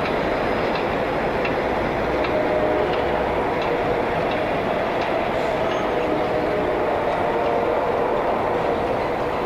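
New York City subway train running on the elevated steel structure: a steady rumble with regular clicks of the wheels over rail joints, about one every three-quarters of a second.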